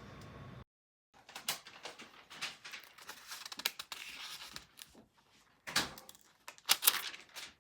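Close handling noises: irregular crinkles, rustles and taps, with a few sharper clicks near the end.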